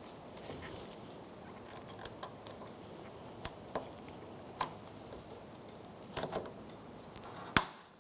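Scattered small clicks and taps from handling a plastic fuel door latch and its release cable as the cable's ball end is fitted into the latch, the sharpest click near the end.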